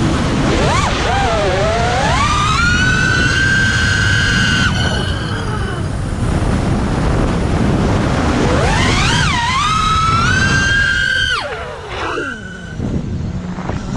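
Five-inch FPV freestyle quadcopter with 2306 2450kv motors whining. Twice the pitch swoops up and holds high as the throttle is punched, and near the end it falls away. A heavy low rumble runs under it.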